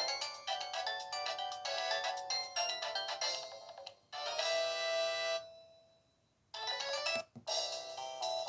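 Samsung SGH-Z140 ringtones playing through the phone's loudspeaker. One melody ends on a held final chord about four seconds in that fades to silence, then the next ringtone starts about 6.5 seconds in, broken by a brief gap and a click just after.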